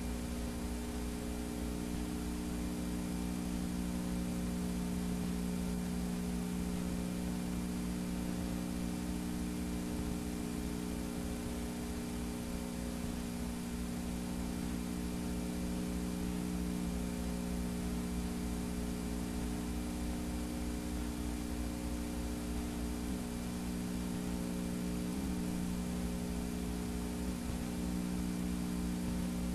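Steady electrical hum over a layer of hiss: playback noise from a blank stretch of videotape with no programme recorded.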